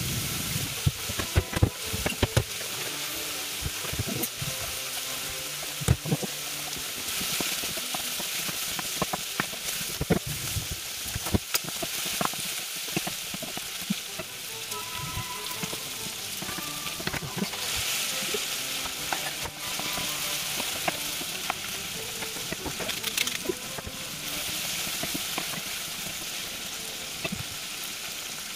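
Diced pork belly sizzling steadily as it browns in a frying pan, with a wooden spoon stirring it and knocking sharply against the pan many times.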